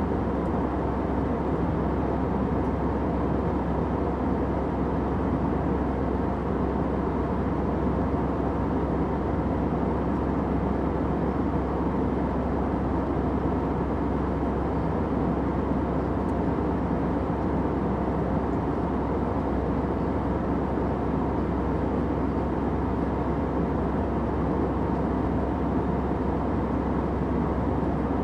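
Airplane noise: a steady, unchanging low rumble, strongest in the low range, with a faint steady hum and nothing else.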